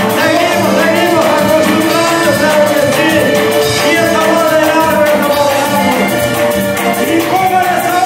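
Upbeat Latin American music with singing and a steady beat.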